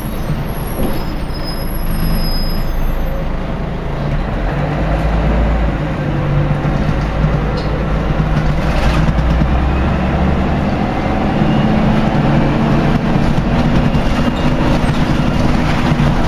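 Rear-mounted Scania 11-litre six-cylinder diesel and automatic gearbox of a Scania L113CRL bus, heard from inside the saloon as the bus drives, the engine note climbing slightly in the second half. The gearbox is reported to be slipping gears.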